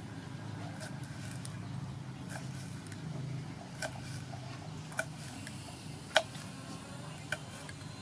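Kitchen knife slicing red chilies on a wooden chopping board: single sharp taps of the blade on the board, about a second apart, in the second half. A steady low hum runs underneath.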